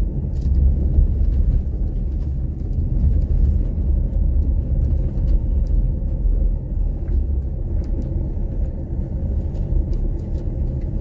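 A car being driven, giving a steady low rumble of engine and road.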